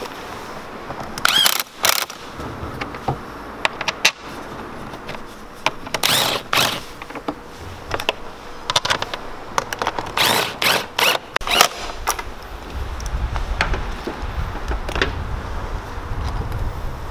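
Hand tools working on an engine's air intake: bursts of socket-ratchet clicking and sharp metal and plastic knocks as the intake parts are fastened. A low rumble comes in about twelve seconds in.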